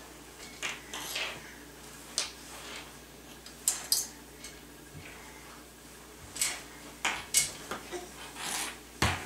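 White metal baby safety gate clinking and rattling in irregular sharp knocks as a toddler grips and pulls on its bars.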